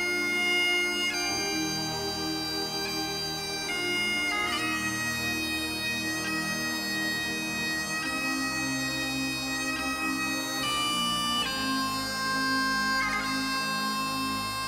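Solo Great Highland bagpipe playing a pipe tune: the drones sound continuously under the chanter's melody, with quick grace-note flourishes between the held notes.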